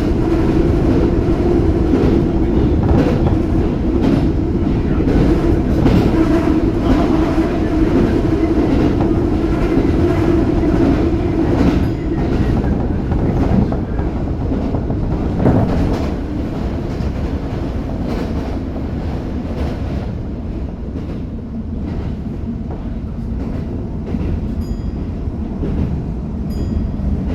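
Tokyo Metro 05 series train running between stations, heard from inside the car: a steady rumble with a held drone for the first half, and wheels clicking over rail joints. The drone fades and the running gets quieter about halfway through.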